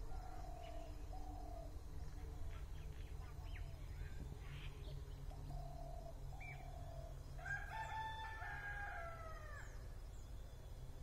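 A rooster crows once, about three-quarters of the way through: a call of about two seconds, held and then falling away at the end. Shorter bird calls repeat before it, over a steady low rumble.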